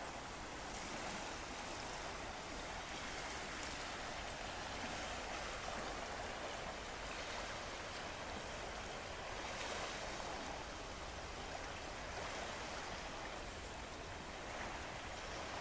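Small waves washing steadily against a rocky seashore, swelling slightly every few seconds.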